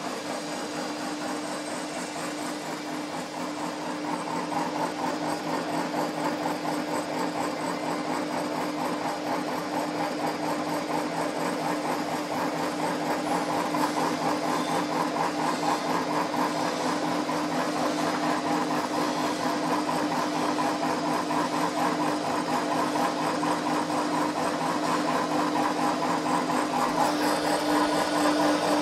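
Electric animal-feed pellet mill running under load, pressing ground grain mash into pellets: a steady hum over a fast mechanical chatter, getting a little louder about four seconds in.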